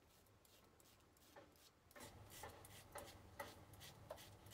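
Faint, short scrapes of a OneBlade Genesis single-edge razor cutting lathered stubble under the chin, a couple of strokes a second, starting about a second and a half in.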